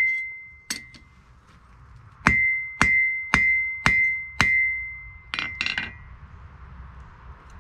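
Ball-peen hammer striking the rivet of a pair of forged tongs on a Trenton anvil, setting the rivet cold. Six sharp ringing blows, one near the start and then five about half a second apart, each leaving a high ring; then a few lighter clinks as the hammer is laid down on the anvil.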